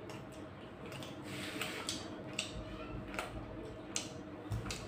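Chicken bones being chewed and crunched with the mouth open: a run of irregular crisp cracks and clicks, a few each second.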